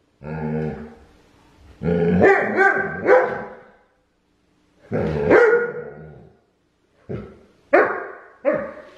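A young husky-type dog barking and yowling in play, about six calls in all, some sliding up and down in pitch. The first call is lower and growly, and three short barks come close together near the end.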